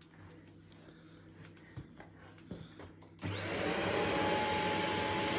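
Shark corded stick vacuum switched on about three seconds in, its motor whining up to speed and then running steadily. A few light clicks of handling come before it.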